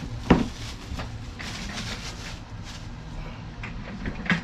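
Laptop box packaging being opened: plastic shrink wrap rustling and cardboard scraping, with a sharp knock about a third of a second in and a smaller one near the end.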